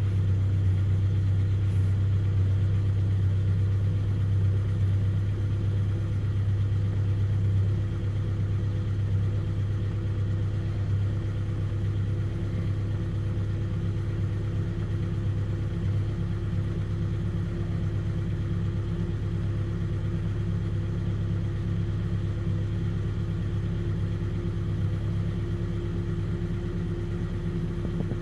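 An old vehicle's engine idling steadily while warming up after a cold start, a constant low hum that eases slightly about eight seconds in.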